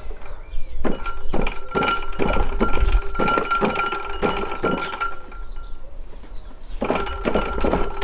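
Socket ratchet clicking as it is swung back and forth, winding a loosened 17 mm cylinder head bolt out of a Fiat 500 F 499cc engine, with a faint steady metallic ring under the clicks. The clicking runs in two spells with a short pause just before the end.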